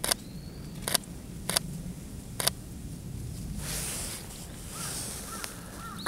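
Four sharp clicks in the first two and a half seconds, about a second apart: a camera shutter firing at a bird. A soft rustle follows, with faint short repeated bird calls near the end.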